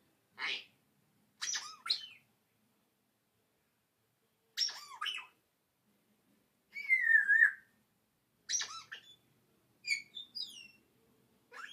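African grey parrot giving a string of about seven short calls and whistles with pauses between. A longer wavering whistle comes about halfway through, and a few quick falling whistles near the end.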